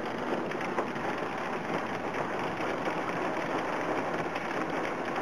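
Heavy rain falling on a vehicle, heard from inside the cab: a steady, even hiss with the vehicle's low running noise beneath it.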